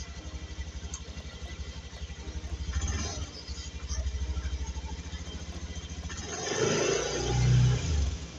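Honda Beat scooter's single-cylinder four-stroke engine idling with a steady rapid putter, swelling louder for a second or so near the end.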